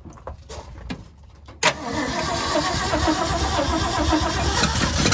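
A few faint clicks, then a freshly rebuilt Ford 360 FE V8 fires up suddenly about a second and a half in and keeps running.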